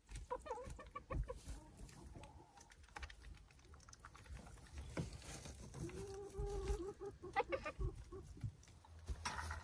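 Silkie chickens clucking softly with short calls, and one longer drawn-out call about six seconds in.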